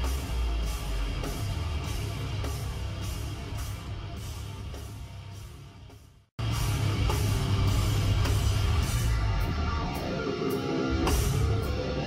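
Live heavy metal band playing, with distorted electric guitars and a drum kit. The music fades away to a moment of silence about six seconds in, then cuts straight back in at full volume.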